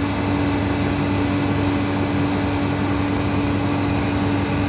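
Cold-room refrigeration machinery running: a steady hum with one strong, constant tone over a lower drone and an even rush of fan-like noise.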